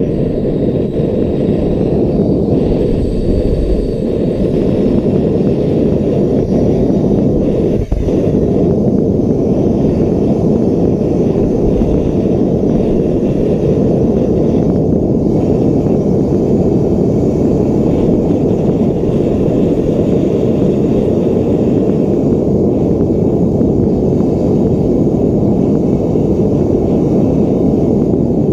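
Homemade propane forge burner, built from pipe fittings, running steadily into a fire-brick forge: a loud, even rush of gas flame. It grows a little louder over the first few seconds as the regulator is turned up from minimum pressure, with a brief dip about eight seconds in.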